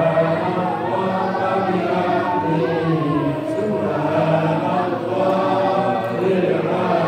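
A group of men chanting Islamic prayers together in unison, their voices overlapping in a steady, continuous drone-like recitation.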